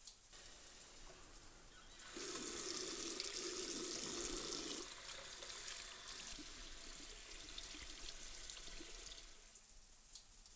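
Water from a bathroom tap running into a washbasin as hands are washed under the stream. It starts about two seconds in, is loudest for the first few seconds, then runs a little softer and fades out near the end.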